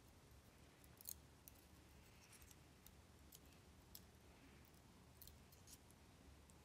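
Near silence with a scattering of faint, sharp clicks: steel tweezers ticking against the lock cylinder and its small pins and springs.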